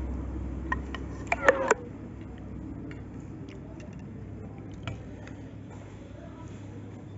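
Steel spoon clinking against a ceramic plate as food is served onto it: a cluster of sharp clinks about a second and a half in, then a few lighter taps.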